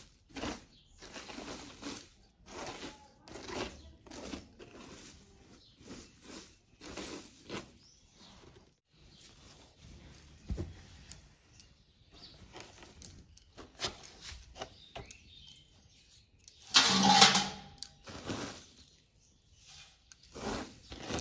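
Sun-dried fenugreek leaves crackling and rustling as a hand crumbles them on a cloth, in short repeated bursts. About seventeen seconds in there is one louder, longer burst of noise.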